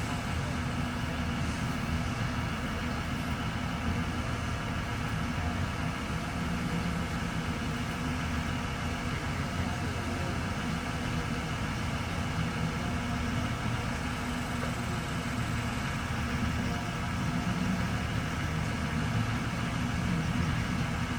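A large engine idling steadily.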